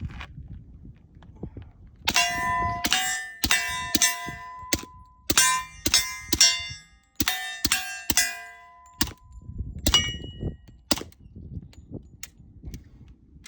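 A string of about a dozen suppressed .45 ACP shots from an HK Mark 23 pistol, each answered by the clang of steel targets ringing. The shots come in quick groups for about nine seconds.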